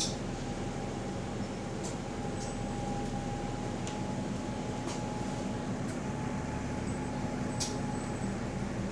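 Bus running on the road, heard from on board: a steady low drivetrain and road rumble with a thin, steady whine from the differential, the subtle weird differential noise of this bus, and a few brief rattles and clicks.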